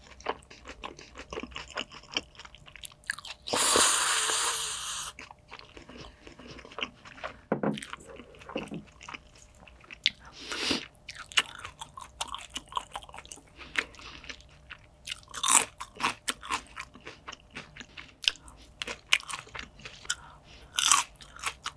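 Close-miked eating: irregular crunching and chewing of fresh salad vegetables with caviar, with wet mouth clicks in between. About four seconds in comes a louder noisy rush lasting about a second and a half.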